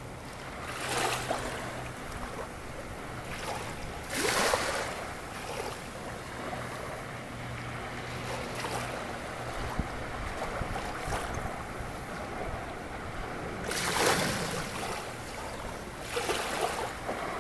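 Small waves lapping and washing onto a sandy shore over a steady rush of wind and water, with louder washes about a second in, at about four seconds, and twice near the end.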